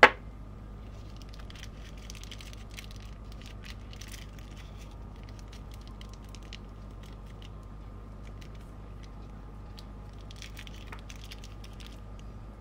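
A sharp click at the very start, then soft intermittent rustling and small clicks of things being handled over a steady low hum, the rustling coming in two spells, early and again near the end.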